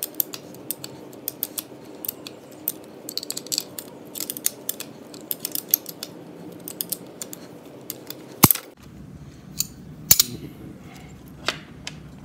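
A 9/16 wrench ticking and clinking on the flats of a valve lifter and against the valve springs as it turns the lifter in a Continental flathead-four engine block. Many small metal clicks, with a sharp clack about eight and a half seconds in and another just after ten.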